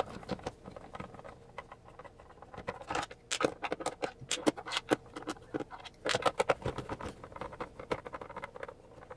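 Hands working on a soldering station's metal case to take it apart: irregular small clicks, taps and scrapes, busiest about three seconds in and again around six seconds.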